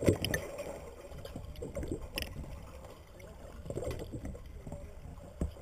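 Muffled water sound picked up by a camera held underwater: low, uneven sloshing and bubbling, with a sharp knock right at the start and a few fainter knocks later.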